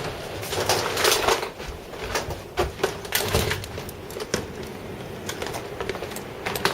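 A person moving about: irregular clicks, knocks and rustles of handling and footsteps, over an uneven rushing noise.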